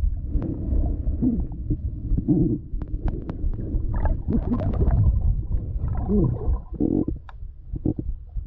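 Underwater sound at a submerged camera: a steady low rumble of water moving past it, with bubbly gurgles and scattered sharp clicks and ticks.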